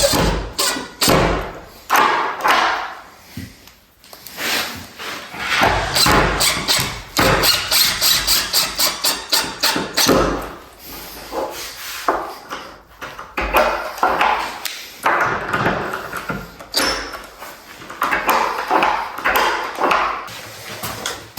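Irregular knocks, clicks and rattles of screws being driven into deadbolt hardware and the parts being handled, with dense runs of rapid clicking in places.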